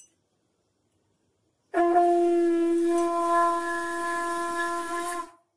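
Conch shell (shankha) blown in one long, steady note lasting about three and a half seconds, starting about two seconds in. It is sounded for the Bengali evening prayer (sandhya).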